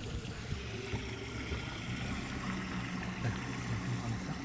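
Fishing boat's engine running steadily, a low hum under a steady hiss of wind and water.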